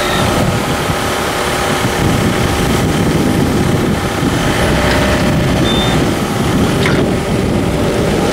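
Forklift engine running steadily as the forklift drives slowly forward.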